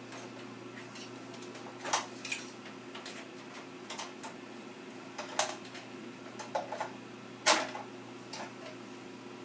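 Scattered sharp clicks and light knocks of cables and plastic connectors being handled and pushed into place inside a computer case, about six in all with the loudest near the end, over a steady low hum.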